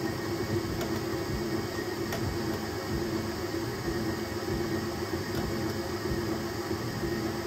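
Enclosed high-speed 3D printer printing flat out: a steady rush of fan and motion noise with a hum that swells and fades as the toolhead moves, and a couple of faint ticks.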